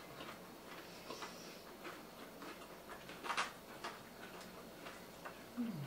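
Close-up eating sounds: chewing with lip smacks and wet mouth clicks at an irregular pace, the loudest cluster about three seconds in.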